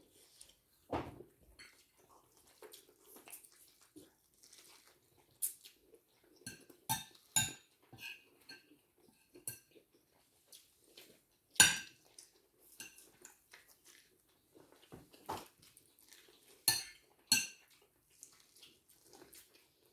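Cutlery clinking and scraping against plates during a meal: scattered sharp clinks with a short ring, the loudest about halfway through.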